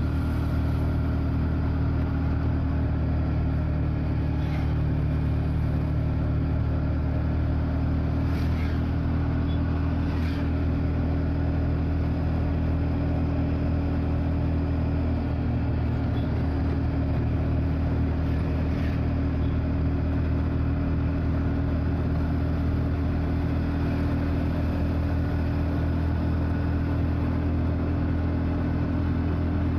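Steady drone of a motor vehicle driving along a road: a constant low engine hum with road noise, holding an even speed.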